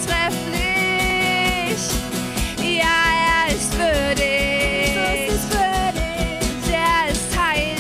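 Worship band music with a steady drum beat under long held melody notes that waver in pitch, continuing a praise song.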